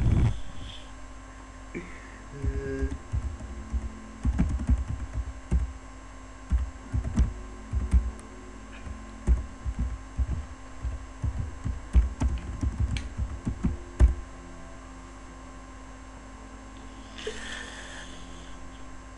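Typing on a computer keyboard: irregular clusters of dull keystroke knocks over a steady electrical hum. The typing stops about fourteen seconds in, leaving the hum.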